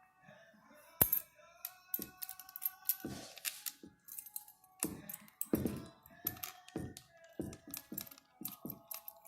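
Small metal parts of an M2000 wire stitcher head clinking and knocking against each other and the bench as they are handled, about a dozen sharp clicks at irregular intervals, the loudest about a second in.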